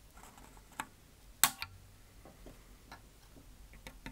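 Metal pliers gripping and snapping capacitors off a circuit board, with one sharp snap about a second and a half in and a few lighter clicks near the end.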